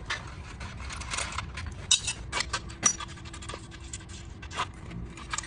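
Hand tools clinking, knocking and scraping against metal while the exhaust bracket is unbolted, with irregular sharp clicks and a couple of brief metallic rings.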